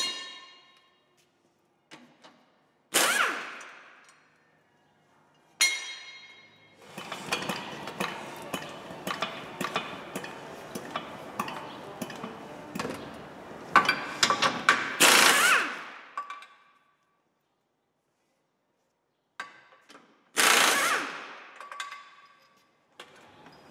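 Impact wrench hammering in short bursts, with one long run of rapid blows in the middle, undoing a car's subframe bolts, along with sharp metallic clanks.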